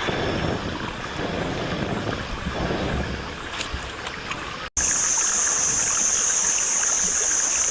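Outdoor noise like running water for the first few seconds, then an abrupt cut to a steady high-pitched buzz.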